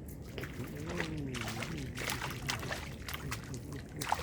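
Water splashing and trickling in irregular strokes, with a brief voice about a second in.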